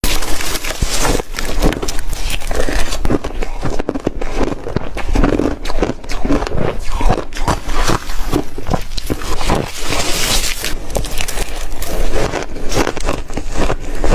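A mouth crunching and chewing big bites of soft re-shaved freezer ice, a dense unbroken run of crunches.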